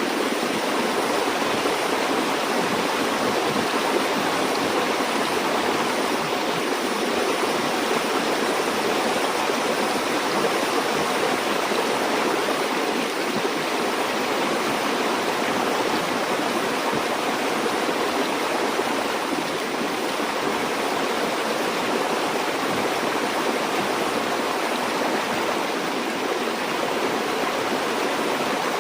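River water flowing steadily, a continuous even rush with no breaks or changes.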